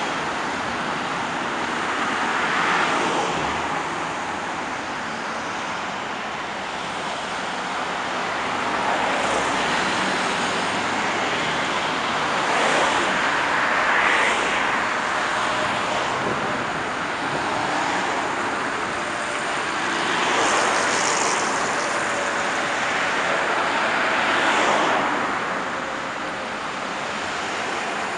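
Busy highway traffic, cars and trucks passing one after another close by, a continuous rush of tyre and engine noise that swells several times as nearer vehicles go by.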